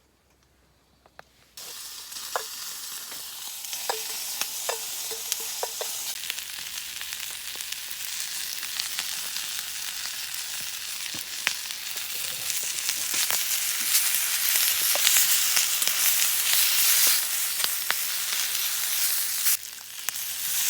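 New potatoes and asparagus sizzling in butter in a frying pan, the sizzle starting suddenly about a second and a half in and growing louder, with clicks and scrapes of stirring.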